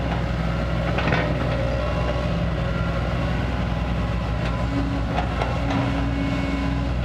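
Kobelco SK200 excavator's diesel engine running steadily under work, with a few sharp knocks about a second in and again past the middle, and a steady higher tone coming in later.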